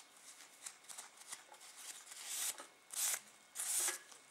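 Satin ribbon being drawn through crocheted yarn work by hand: three short rustling swishes in the second half, with light handling ticks between.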